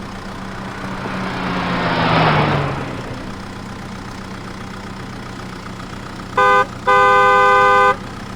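Cartoon vehicle sound effects: a steady engine hum, and a whoosh that swells and fades about two seconds in, falling in pitch. Near the end, a car horn honks twice, a short toot and then a longer, louder blast.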